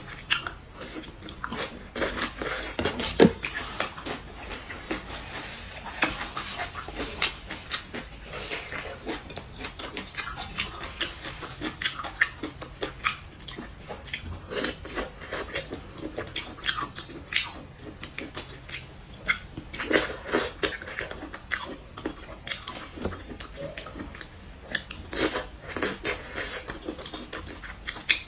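Close-up mouth sounds of eating soft skewered food, wide noodles and braised mushrooms: wet chewing, smacking and biting, many short irregular clicks.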